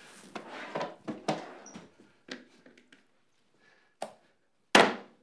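Chicken being pounded on the kitchen counter: some clattering handling first, then a sharp knock about four seconds in and a louder, harder whack near the end.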